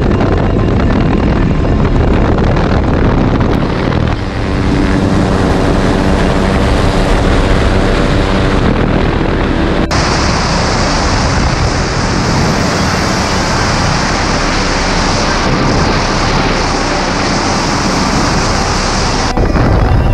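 Helicopter in flight with the doors off: steady rotor and engine drone under heavy wind rush on the microphone. The sound shifts abruptly about halfway through to a brighter, hissier mix.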